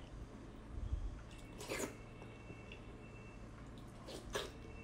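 Close-up wet eating sounds: sucking and slurping at a sauce-soaked piece of food, with a sharp wet slurp about two seconds in and a pair more near the end, and soft chewing between.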